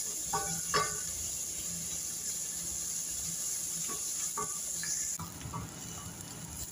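Diced onion and garlic sizzling in hot oil in a stainless steel pan as they soften, stirred with a wooden spatula that scrapes the pan a few times. The steady high hiss drops about five seconds in.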